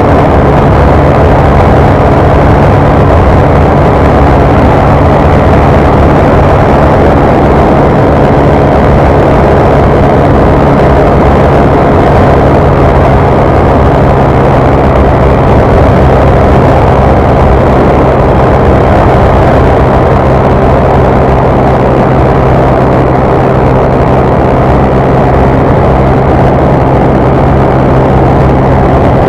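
Honda Fan 150 motorcycle's single-cylinder engine held at wide-open throttle, running loud at a steady high pitch, around 140 km/h.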